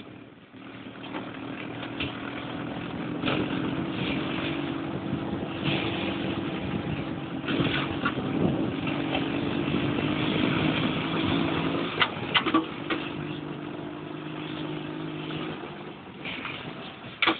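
Dune buggy engine running under way over a snowy track, a steady low drone that shifts down in pitch about two-thirds through. A few sharp knocks come around then and again near the end.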